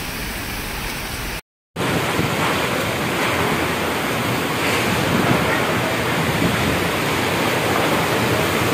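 Heavy rain pouring in a strong windstorm, with wind gusts buffeting the phone microphone. The sound drops out briefly about one and a half seconds in, and after that the wind and rain are louder.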